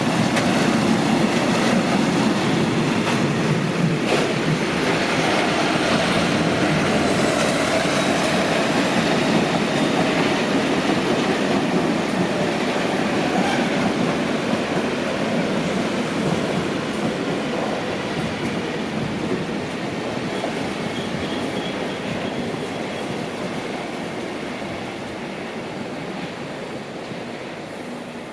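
Freight train rolling along the track, its wheels clattering over the rails in a steady rumble that slowly fades as it moves away.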